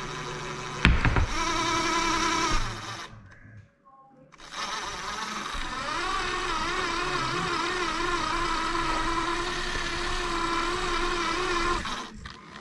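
RC rock crawler's motor and drivetrain whining as it crawls, with a knock about a second in. It goes almost silent for about a second and a half around three to four seconds in, then whines again with a wavering pitch until near the end.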